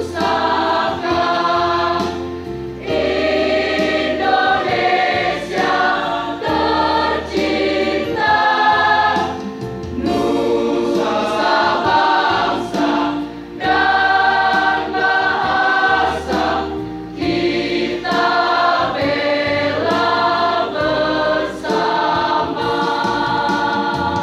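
High-school choir singing in several voice parts.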